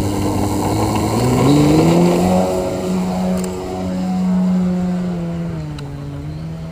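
Engine and propeller of an 87-inch 3DHS Extra 300 SHP radio-controlled aerobatic airplane at full throttle on takeoff. The pitch rises over the first two seconds, holds as a loud steady drone while the plane climbs, then drops and fades near the end as it pulls away.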